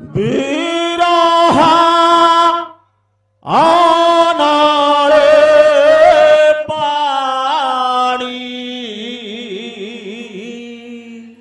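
A male voice singing an Odia Pala devotional song through a microphone: long held, ornamented notes without drumming, breaking off briefly about three seconds in and resuming, then going on more softly with wavering notes near the end.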